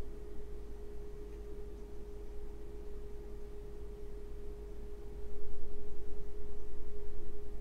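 A steady, pure electronic tone held at one unchanging pitch, over a faint low hum.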